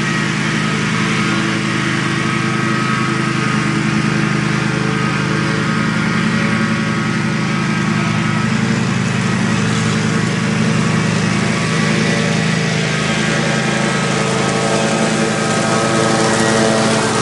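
Stand-on commercial mower's engine running at steady speed while mowing thick overgrown grass. It grows a little louder near the end as the mower comes close.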